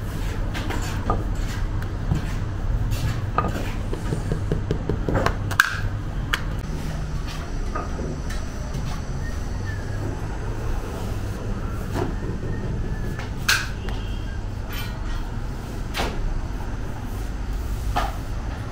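Bakery work noise: irregular knocks and clicks from hand tools at the dough counter and the clay oven, over a steady low hum.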